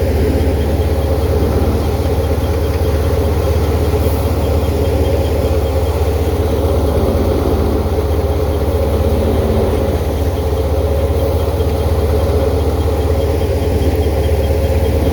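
A large engine running steadily at constant speed, a deep hum with no change in pitch.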